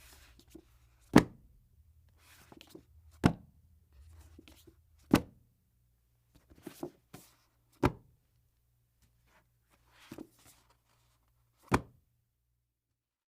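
A series of sharp knocks or thuds, five loud ones about two seconds apart with softer clicks between them, over a faint low hum.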